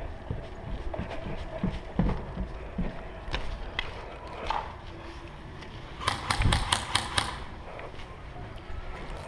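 Footsteps and gear thudding as a player moves, then about six seconds in a quick string of about eight sharp cracks over a second, typical of an airsoft gun firing.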